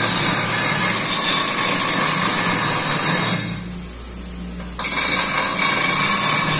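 Electric bench grinder grinding a metal pipe against its wheel: a steady harsh grinding over the motor's hum. About three and a half seconds in the pipe comes off the wheel and only the motor's hum is left for about a second and a half, then the grinding resumes abruptly.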